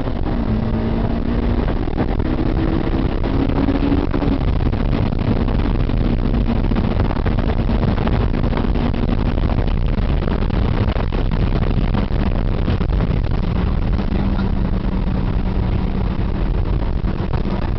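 Honda S2000's four-cylinder engine running hard at steady high revs, heard from inside the cabin over loud wind and road noise; the engine note dips slightly a couple of times.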